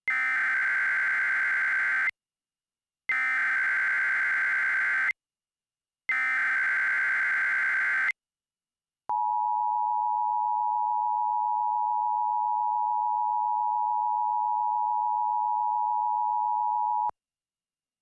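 Emergency Alert System header: three two-second bursts of SAME digital data tones a second apart, followed by the steady two-tone EAS attention signal held for about eight seconds. Together they mark the start of an emergency alert message.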